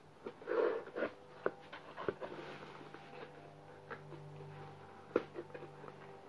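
Hands handling a boxed album on bubble wrap: scattered taps, scrapes and plastic crinkles, with a louder rustle about half a second in and a sharp tap about five seconds in.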